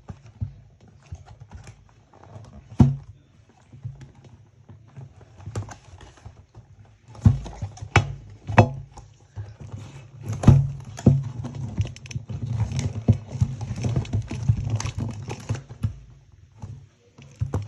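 A doll's cardboard and plastic packaging being opened by hand: irregular clicks, taps and rustles, sparse at first and busier from about seven seconds in.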